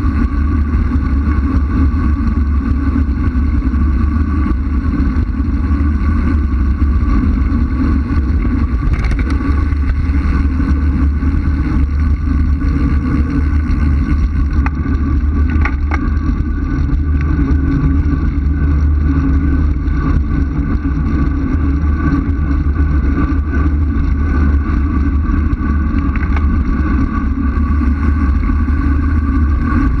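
Steady, loud wind buffeting and road rumble on a bike-mounted camera's microphone as the road bike descends at speed.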